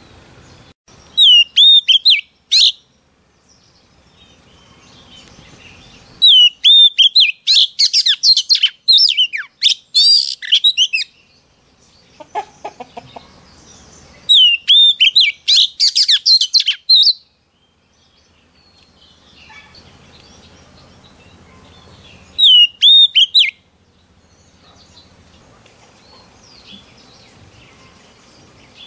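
Oriental magpie-robin singing: loud bouts of quick whistled notes that swoop up and down, four bouts with pauses between them, the longest lasting about five seconds.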